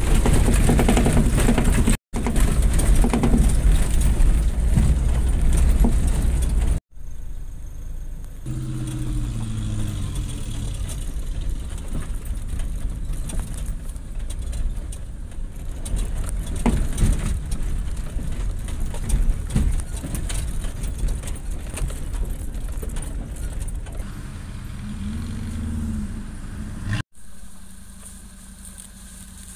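Off-road vehicle engine running, in several short stretches cut together. First comes a loud low rumble, then quieter running, with the engine note falling in pitch about nine seconds in.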